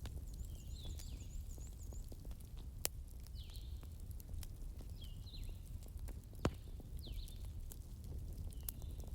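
Wood fire crackling, with frequent small ticks and two sharp louder pops, one a few seconds in and one past the middle. Behind it a bird repeats a short falling call about every second and a half, over a low steady rumble.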